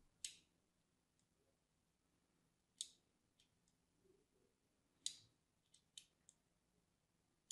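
Small blade scoring thin grooves into a bar of soap: three crisp scraping cuts about two and a half seconds apart, with fainter, shorter scrapes between them and a quick run of three near the end.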